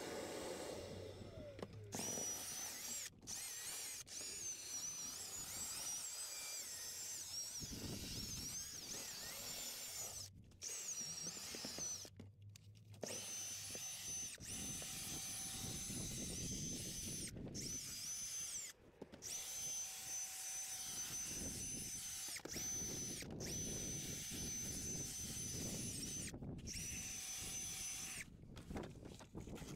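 Cordless drill spinning a stiff drill brush that scrubs car floor carpet, agitating the fibres before extraction. The motor gives a steady high whine over the scrubbing, stopping and starting in several short gaps.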